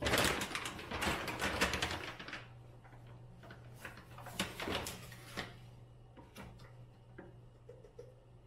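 A bag of dextrose powder crinkling and rustling for about two and a half seconds as it is handled and scooped from, then a few scattered light clicks and taps. A low steady hum runs underneath.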